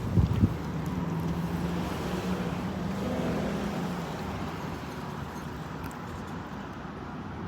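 A motor's low steady hum that fades out about four seconds in, over a steady outdoor noise haze, with a couple of thumps at the very start.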